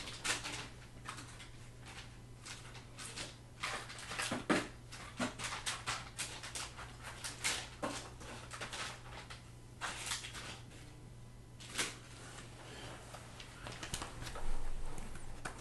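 Irregular clicks, knocks and rustles of objects being handled at a desk, over a steady low electrical hum. The handling noise grows louder near the end as a person moves back into the chair.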